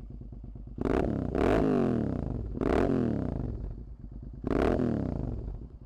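Suzuki SV650 V-twin with an aftermarket Dan Moto exhaust idling, then revved three times, each rev rising in pitch and dropping back to idle; a deep rumble.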